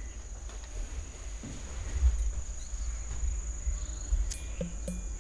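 Insects trilling outside in a steady, high-pitched, unbroken drone, over a low rumble.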